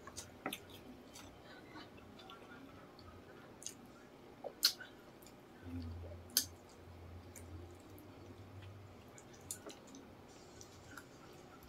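Close-up eating sounds of people chewing and sucking on chicken feet adobo, with scattered sharp mouth clicks; the two loudest clicks come a little before and a little after the middle. A low hum runs for a few seconds in the middle.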